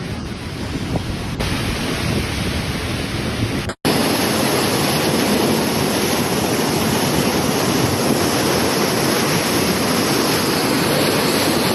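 Steady rushing noise of fast-flowing floodwater, with wind on the microphone. It breaks off briefly about four seconds in, then runs on louder and more even.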